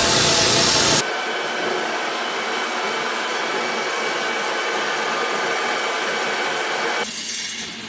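An angle grinder cutting metal, a loud steady grinding whine, stops abruptly about a second in. A metal lathe follows with a steady whirring hiss, and the sound changes again near the end.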